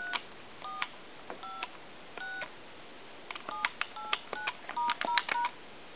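Touch-tone (DTMF) dialing on a Radio Shack Pallette Fashions telephone. Each key press gives a click and then a short two-tone beep: a few keys spaced apart, then a quicker run of about eight in the second half. The keypad is being tested on a line analyzer after a replacement main board was fitted.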